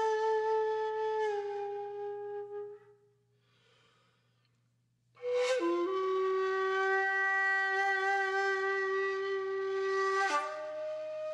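Background music: a slow melody of long held, slightly wavering notes that fades out about three seconds in, then comes back with new held notes about five seconds in and changes note near the end.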